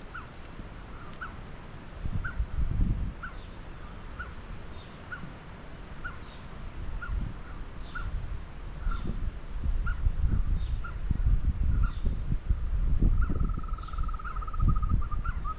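A bird repeating a short call note about twice a second, with a brief rapid trill near the end, over uneven low rumbling.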